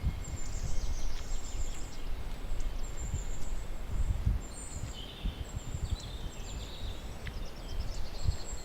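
Forest ambience: birds calling with short, high, thin notes repeated throughout, and a cluster of lower chirps in the middle, over an uneven low rumble.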